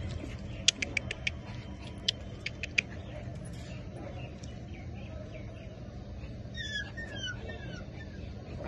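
Akita puppies squeaking while they nurse and jostle against their mother: a quick run of short, high chirps in the first few seconds, then a few falling squeals about seven seconds in.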